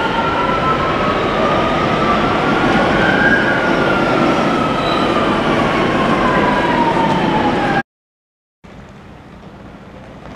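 Electric metro train pulling into the station: rumble and wheel noise with the traction motors' whines gliding in pitch, the strongest falling steadily as the train slows. It cuts off suddenly about eight seconds in, and after a brief silence comes a much quieter steady wind noise.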